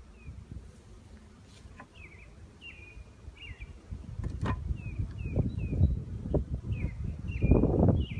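A small bird chirping over and over, short high downward-slurred notes about twice a second. Underneath is a low rumbling noise that grows from about halfway through and swells loudest near the end.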